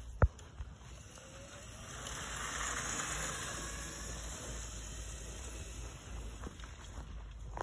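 A sharp click just after the start. Then a modified Razor SX500 electric dirt bike rides off across grass, its motor whine and chain hiss swelling and slowly easing as it pulls away.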